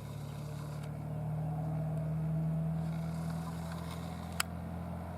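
A steady low engine hum, growing a little louder in the middle, with one sharp click about four seconds in.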